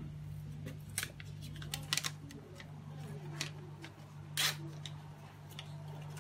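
Small clicks and rustles of fingers peeling the wrapper off a roll of printer paper, with one brief louder rustle about four and a half seconds in, over a steady low hum.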